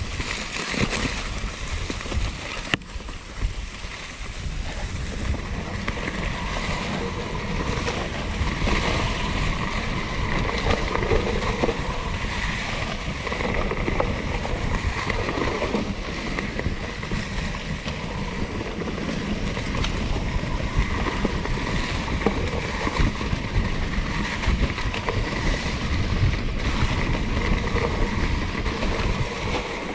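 2016 Norco Torrent plus-tyre hardtail mountain bike riding a dirt trail: steady rushing noise of wind over the microphone and tyres rolling on the ground, with frequent small knocks and rattles from the bike over bumps.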